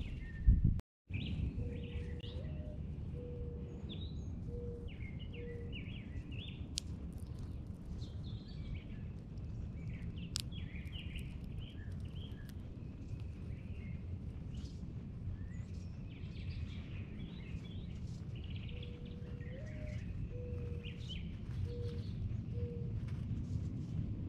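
Backyard birds chirping and calling on and off, over a steady low background rumble. A low, soft four-note call sounds twice, a few seconds in and again near the end. A brief loud bump and a momentary dropout come about a second in.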